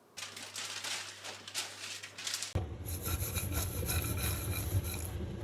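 Rough scraping or rubbing strokes for about two and a half seconds, then an abrupt change to a steady low rumble with faint high tones.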